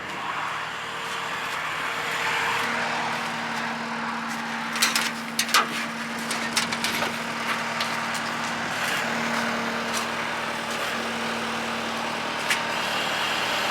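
Tractor engine running at a steady idle, with a cluster of sharp clicks and knocks about five seconds in and another click near the end.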